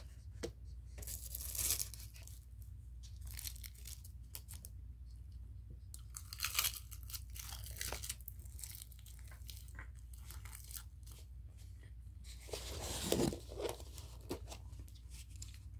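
Takeaway food packaging being torn and rustled open by hand: short bursts of tearing and crackling with scattered small clicks, the loudest about a second and a half in, around six seconds, and near the end.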